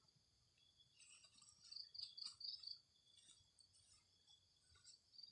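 Faint, steady high-pitched chirping of insects such as crickets, with a short run of louder pulsing chirps about two seconds in.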